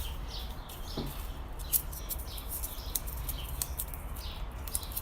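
Hands crumbling and handling a crunchy material: a run of small, irregular crackles and squeaky clicks, with a steady low hum underneath.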